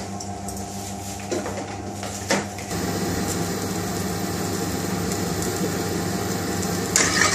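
Steady mechanical hum of a commercial kitchen, with two light knocks in the first couple of seconds. The noise steps up to a louder, steady hiss about a third of the way in, and a brighter, louder hiss starts just before the end.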